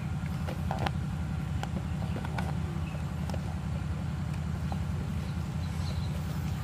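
Steady low motor hum, like an engine running, with a few faint ticks over it.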